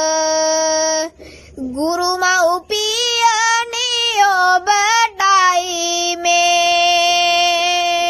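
A boy singing a Sinhala kavi verse solo, in a slow chant-like melody: a held note that breaks off about a second in, a few short gliding phrases, then a long steady note held from about five seconds in.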